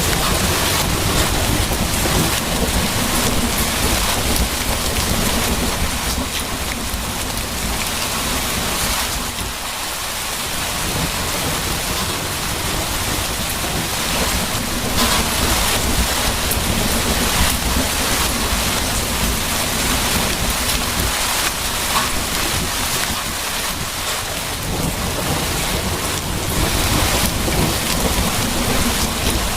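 Steady heavy rain with rolling thunder: a low rumble that swells and fades under the hiss of the rain, easing off briefly twice.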